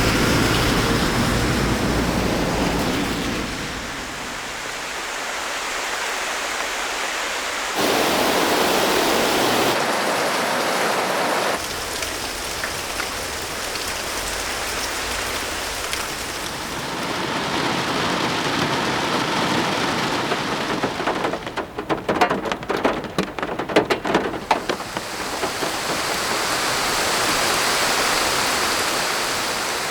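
Rain recordings played one after another: a steady hiss of rainfall that changes abruptly about eight seconds in and again about twelve seconds in. A little past twenty seconds in, separate close drops are heard splashing for a few seconds before the even hiss returns.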